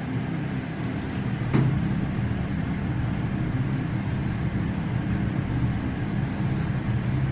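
Steady low background rumble, with a single sharp click about one and a half seconds in.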